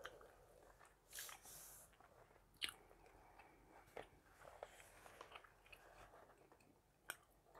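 Faint close-miked gum chewing with soft, scattered wet clicks, and a brief papery rustle of the book being handled about a second in.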